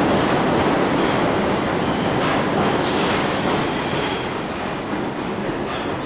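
R62A subway train running past along the platform: a steady rumble of steel wheels on rail that slowly gets quieter, with a sharp clack about three seconds in and another near the end.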